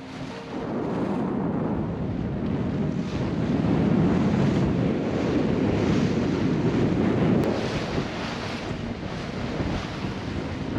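Strong wind buffeting the microphone in gusts over the rush of choppy water along a sailboat's hull.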